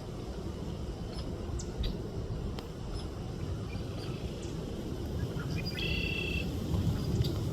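Birds chirping: short, scattered high chirps and a brief trill about six seconds in, over a steady low background rumble.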